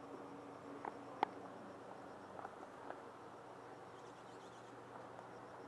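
Quiet background with a few faint, sharp clicks, the strongest about a second in and two lighter ones a little before and after the middle.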